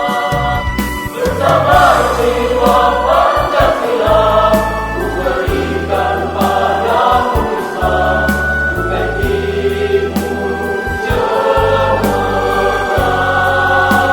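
A choir singing a solemn hymn in harmony, over long, steady low bass notes.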